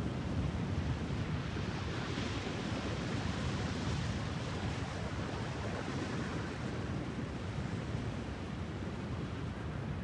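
Distant ocean surf: a steady low rumble of breaking waves, with one wash of surf swelling and fading from about two to five seconds in.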